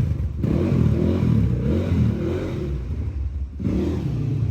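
Motorcycle engine running and being revved, easing off briefly about three and a half seconds in. It is running through aftermarket silencers rather than the stock ones.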